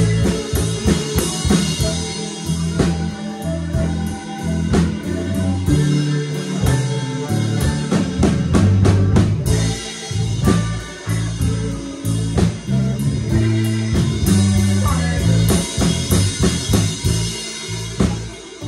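A live blues band playing an instrumental passage: electric guitars over a steady drum kit beat, with a harmonica played into the vocal mic.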